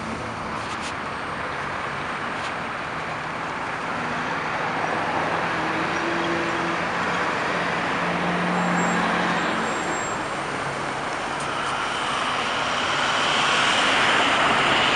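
Road traffic at a city intersection: cars and trucks driving past. A heavy truck's engine passes close about halfway through, and a yellow school bus passing close makes the noise swell near the end.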